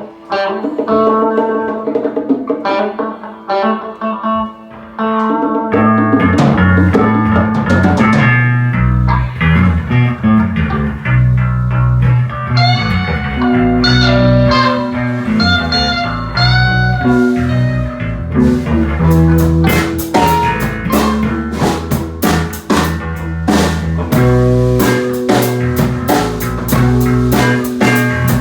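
Blues-rock band playing: guitar alone at first, then bass and a drum kit coming in about five seconds in and carrying a steady groove.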